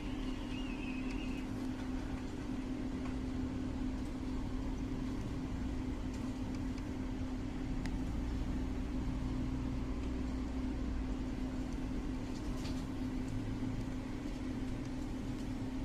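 Steady machine hum with one constant low tone and a low rumble underneath, with a few faint clicks.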